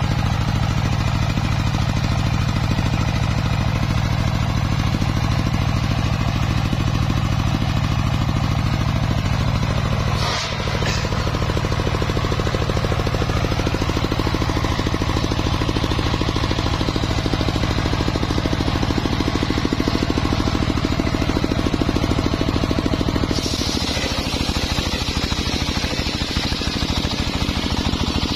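Homemade engine-driven circular sawmill running steadily with its blade spinning. About three-quarters of the way through, the blade bites into a log: a hissing cutting noise joins the engine, which settles slightly lower under the load.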